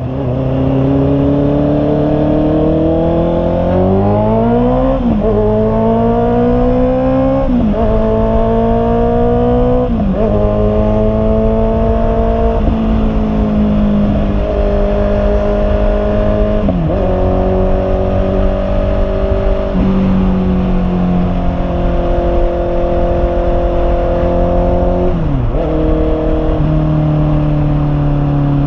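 Honda CB650R inline-four engine pulling hard through the gears. Its pitch climbs and then drops sharply at each upshift: every two to three seconds at first, then with gentler climbs and longer gaps between shifts.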